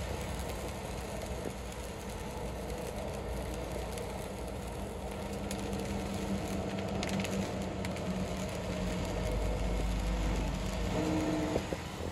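Steady engine hum and tyre noise heard from inside a vehicle driving on a wet road in the rain.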